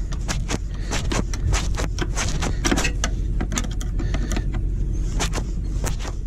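Irregular clicks and rattles of a clamp being fastened by hand on the diesel heater's hot-air duct, over a steady low hum.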